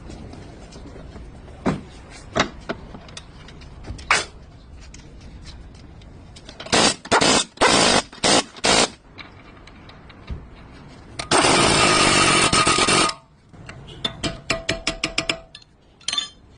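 Tool work during a front drive shaft replacement. A few sharp knocks come first, then a cluster of short loud noisy bursts. A longer burst of about two seconds follows, then a quick run of even clicks near the end.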